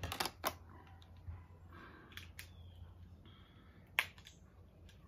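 Faint handling noise of small items being picked up and set down: a few sharp clicks near the start and one sharp click about four seconds in, over a steady low hum.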